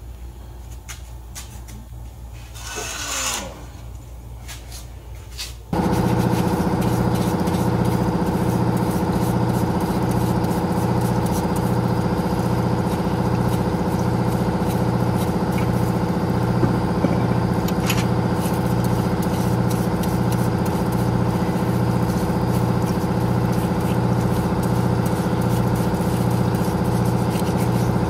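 A motor switches on suddenly about six seconds in and runs steadily, with a low, regular pulse.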